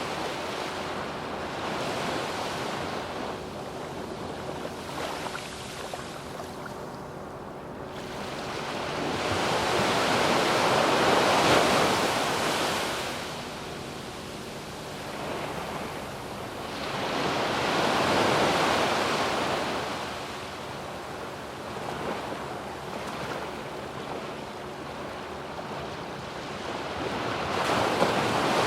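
Surf breaking and washing up a sandy beach, the waves swelling and fading in slow surges: one loud surge about a third of the way in, another about two-thirds in, and a third building at the end.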